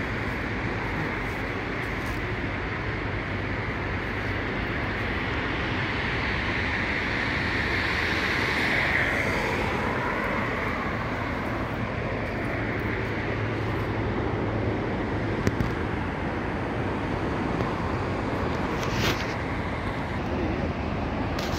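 Steady outdoor rushing noise that swells a little about nine seconds in, with a couple of faint clicks later on.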